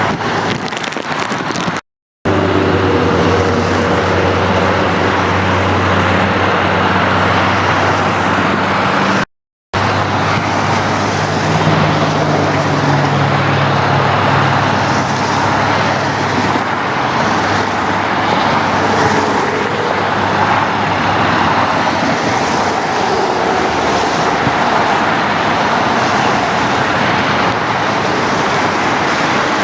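Road traffic noise: a steady rush of passing vehicles with a low engine hum. It breaks off into brief silence twice, about two and nine and a half seconds in.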